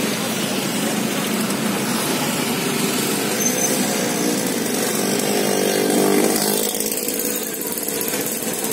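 A small motor running steadily nearby, swelling in pitch and loudness about six seconds in, then easing off.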